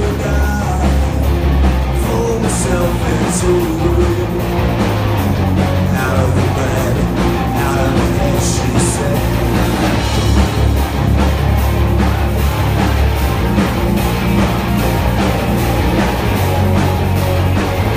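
Rock band playing live and loud, a singer's voice over guitar and a heavy bass, heard from within the crowd.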